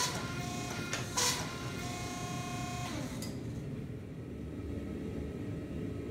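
Hydraulic forge press working hot steel on its flat dies. Two sharp clanks and a steady tone come in the first three seconds, then only the press's low steady hum.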